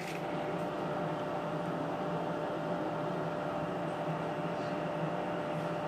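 Steady machine hum with an even hiss, holding several constant tones.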